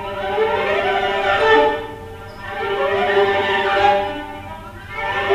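Solo viola playing three upward-sweeping glissando phrases over a held lower note. Each sweep swells and then fades away, about every two and a half seconds.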